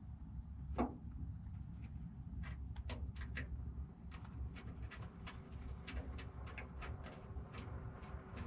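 Scattered light clicks and taps of metal parts being handled inside a truck door while a door latch is fitted, over a steady low rumble.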